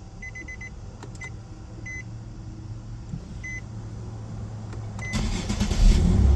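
The car's warning chime beeping, first in quick runs of high beeps and then in single beeps, then about five seconds in the starter cranks and the 2008 Infiniti G35's V6 engine starts.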